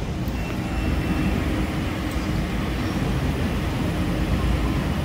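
Evaporator fans of a supermarket frozen food case running with a steady low whir and rush of air. The case has just been switched into defrost, when these fans are meant to shut off.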